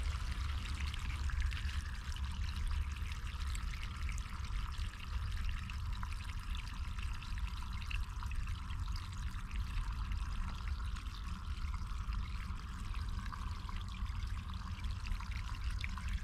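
Small woodland stream trickling steadily over leaves and sticks in its bed.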